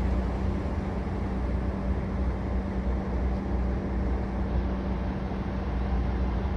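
Steady low rumble of running engines and street traffic, with a constant low hum underneath.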